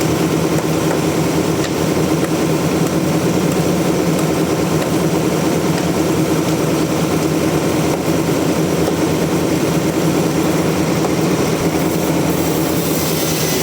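Sawmill machinery running steadily, an engine-driven hum that holds one pitch throughout.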